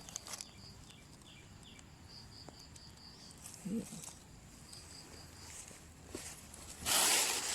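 A loud rustle near the end, with quieter rustles earlier, over faint high chirps repeating at about four a second in short runs.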